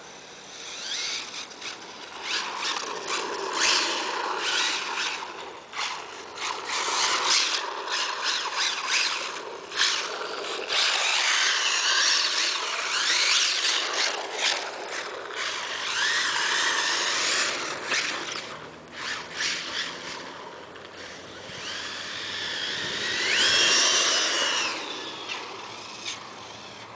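RC buggy's Neu 2650kv brushless electric motor whining as it is throttled up and down in repeated bursts, its pitch sliding up and down, with tyres scrubbing on the asphalt as the buggy drifts.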